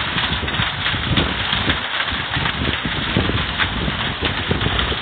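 Heavy rain with hail falling: a steady dense hiss of rain, crowded with many quick, irregular hailstone hits.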